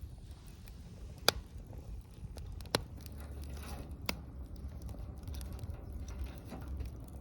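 Wood fire burning with a low rumble and a light crackle, broken by three sharp pops of the burning wood, the loudest a little over a second in.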